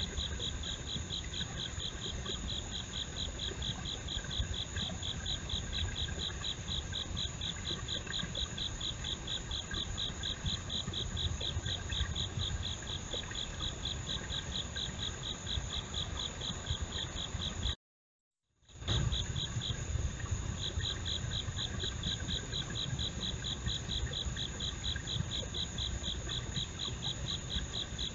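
Night insects calling: a fast, evenly pulsing high chirp over a steady, higher trill, with a low rumble beneath. The sound cuts out for about a second a little past halfway and then comes back.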